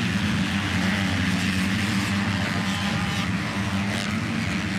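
Motocross bikes racing on the track, their engines blending into a steady drone.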